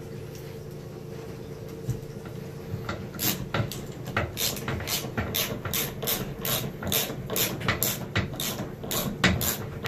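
Socket ratchet wrench clicking as it drives quarter-inch lag bolts into the wall, in quick, even strokes of about three clicks a second that start about three seconds in.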